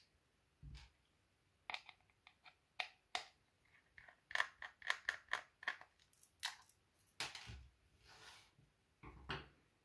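Small screwdriver turning screws out of a plastic instrument case: a run of faint, short clicks and scrapes, with a few soft knocks as the parts are handled and set down.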